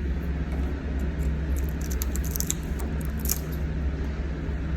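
Wood chisel cutting and scraping into the edge of a wooden door to deepen the recess for a lock reinforcer. Light clicks and scrapes bunch together in the middle, over a steady low hum.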